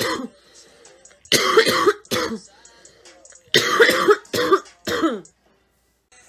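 A girl coughing in harsh, chesty fits: the end of one cough at the start, two coughs about a second and a half in, then three quick coughs in a row about halfway through.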